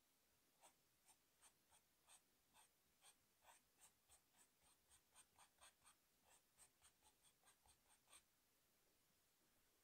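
Pencil scratching on sketchbook paper in faint, short, quick strokes, about two or three a second, as a horse's mane is sketched in; the strokes stop about eight seconds in.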